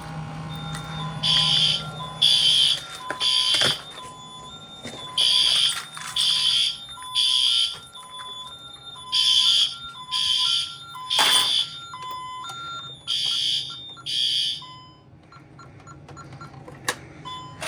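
Fire alarm sounder on a Honeywell Vista security/fire alarm system, set off by pressing a smoke detector's test button. It beeps high-pitched in groups of three with a pause after each group (the temporal-three fire evacuation pattern) and cuts off about three-quarters of the way through.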